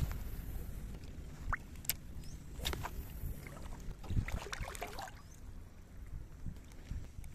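Shallow seawater sloshing and lapping over a reef flat, under a low rumble of wind on the microphone. A few sharp clicks come from a spinning reel being handled during the retrieve, and a flurry of splashy sounds comes about four to five seconds in.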